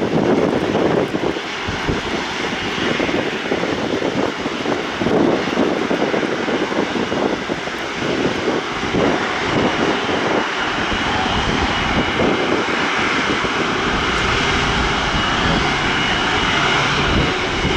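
Airbus A330-243's Rolls-Royce Trent 700 jet engines, a steady loud rushing roar with a faint whine on top, building slightly past the halfway point. Gusty wind buffets the microphone in the first part.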